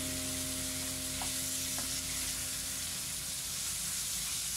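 Sliced beef and onion sizzling steadily in a nonstick frying pan as they are stirred with a plastic spatula, with two faint taps of the spatula about a second and two seconds in.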